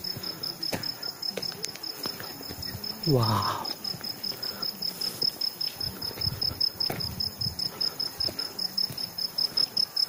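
Insect song: a steady, high-pitched, evenly pulsing trill.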